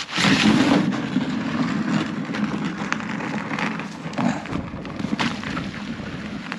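Someone sliding across frozen pond ice after a running jump: a loud scraping rush that starts suddenly, then slowly fades as the slide loses speed.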